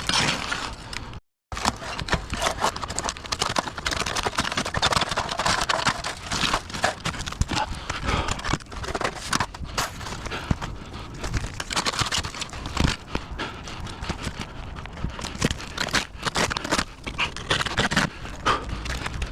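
Irregular knocking, tapping and scraping of hand work on a roof, many short knocks in quick uneven succession. The sound cuts out completely for a moment about a second in.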